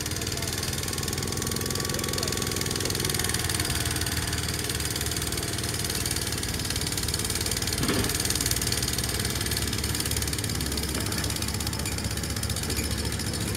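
Massey Ferguson MF 14 garden tractor's engine running steadily under heavy load while pulling a weight sled, the tractor struggling to get traction.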